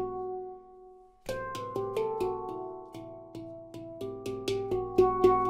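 Nitrided-steel handpan in an A Pygmy (Pele) scale played with the hands: struck notes ring and die away, a brief pause about a second in, then a run of notes that grows busier and louder.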